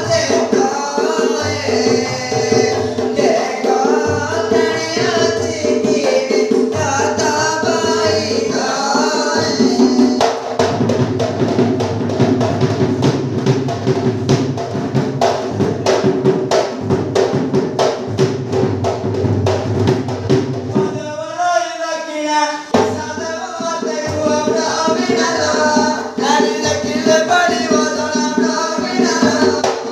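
Danda Nacha folk song: voices singing to a two-headed barrel drum (dhol). In the middle stretch the singing stops and the drum plays a fast run on its own. After a short break the singing comes back with the drum.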